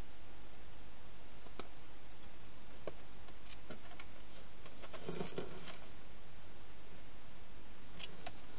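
Scattered small clicks and taps from a wild hedgehog moving about in a clear plastic feeding box, with a brief flurry of them about five seconds in, over a steady hiss.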